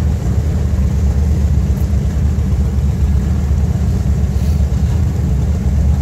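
Covered hopper cars of a long freight grain train rolling past, a steady, loud low rumble.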